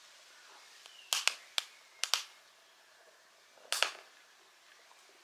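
Wood fire crackling in a small folding camping stove: about half a dozen sharp, separate pops and snaps over a few seconds, the last one near the four-second mark.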